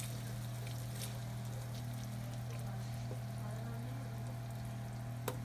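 Red sauce and garlic sizzling gently in oil in a frying pan as they are stirred with a wooden spoon, with faint scraping ticks and one sharp tap near the end, over a steady low hum.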